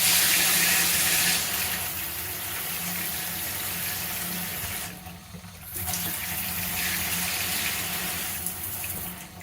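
Cheap three-setting handheld shower head spraying water. The spray drops out briefly about five seconds in and again at the very end, as the spray setting is switched.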